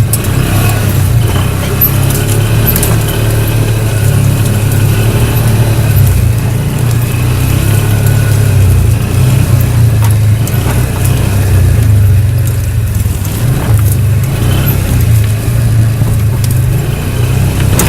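ATV engine running steadily at low revs, with a few short knocks and rattles over it.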